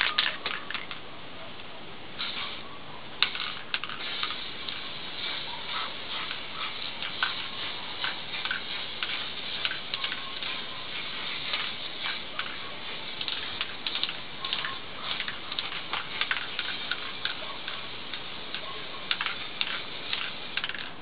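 Aerosol spray can of primer spraying with a steady hiss, dotted with many small irregular ticks. There is a brief rattle of the can being shaken right at the start.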